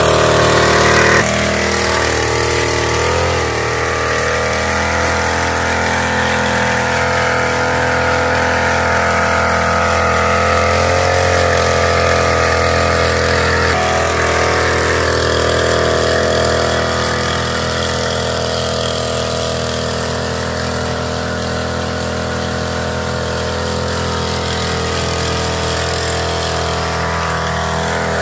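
Knapsack power sprayer's small engine running steadily at a constant speed while spraying, growing a little fainter about halfway through.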